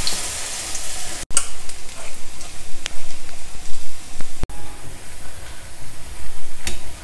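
Urad dal vadais deep-frying in hot oil in a kadai: a steady sizzle of bubbling oil, with a few short clicks.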